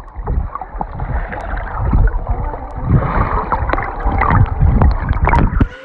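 Muffled sloshing and gurgling of swimming-pool water close to the microphone, with scattered small splashes and knocks; it cuts off abruptly near the end.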